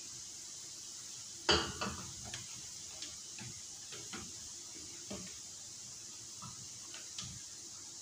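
Kitchen clatter as blanched bell peppers are lifted out of a steel pot and set into a glass bowl: a sharp knock about one and a half seconds in, then scattered light clicks and taps of the utensil on pot and bowl, over a steady hiss.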